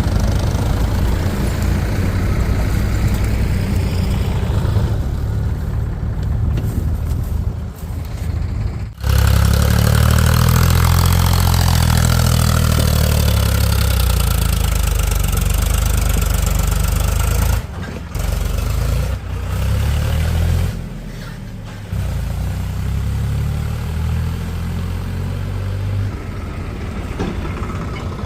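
Heavy diesel machinery engine running at work, revving up and settling back, loudest through the middle stretch; the sound breaks off abruptly a few times and resumes, like cuts between shots.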